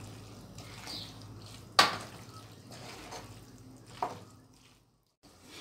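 A wooden spoon stirring bow-tie pasta in a thick sauce in a metal pot, a soft wet stirring sound with two sharp knocks of the spoon against the pot, the first about two seconds in and the louder of the two, the second about four seconds in. The stirring then fades out.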